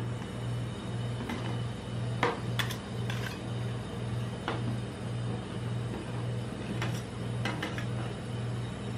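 Metal spatula scraping and clicking against the steel cold plate of an ice cream roll maker as it smooths a thin layer of frozen ice cream, in a handful of separate strokes. Under it runs a steady low hum that pulses about twice a second.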